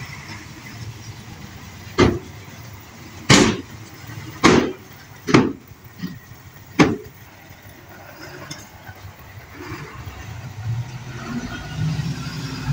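Dump truck's diesel engine running steadily while its bed is raised to tip a load of soil and rock, with five loud bangs over about five seconds. Near the end the engine revs up.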